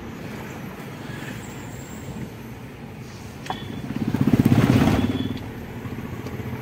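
Steady engine and road noise inside a moving car's cabin. About four seconds in it swells louder with a fast low throb for a second or so, then settles back.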